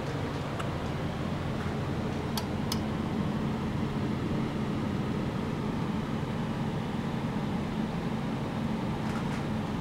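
Steady low hum with hiss from running lab equipment, with a few faint ticks.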